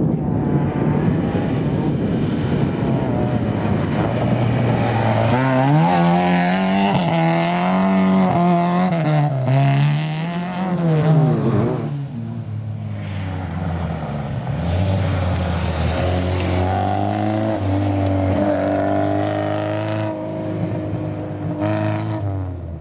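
Rally car driven hard on a gravel stage, its engine revving with the pitch rising and falling repeatedly as the driver works the throttle and gears through the corners. In the second half it holds a steadier note.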